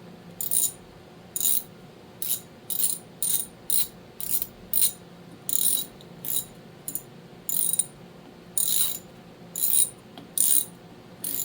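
Hand ratchet driver with a T20 Torx bit clicking in many short back-and-forth strokes as small screws are run down and tightened.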